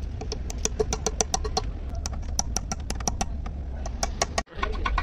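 A hammer tapping quickly on the valve spring retainers of a Hino six-cylinder diesel cylinder head, several sharp metal-on-metal taps a second, which seats the valve keepers. A steady low hum runs underneath.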